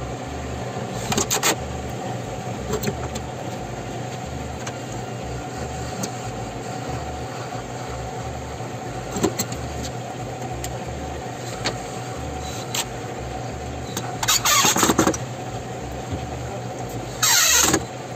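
Cordless drill running in short bursts over a steady hum; the loudest burst comes near the end, its pitch falling as the motor winds down.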